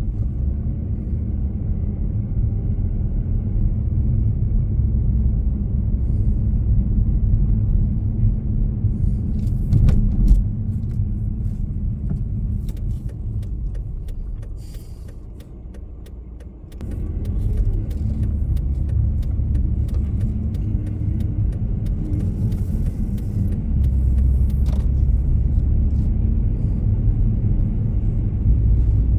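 Road and engine rumble of a moving car heard from inside, low and steady, easing off for a few seconds about halfway through and then picking up again. Faint scattered clicks and light rattles run through the middle part.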